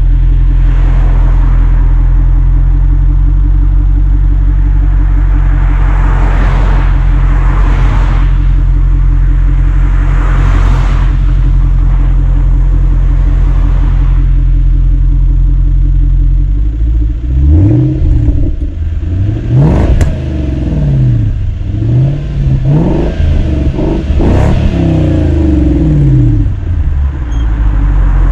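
Jaguar XKR 4.2's supercharged V8 exhaust idling steadily. After a long stretch of idle it is revved in a run of quick blips, each rising and falling in pitch, then settles back to idle.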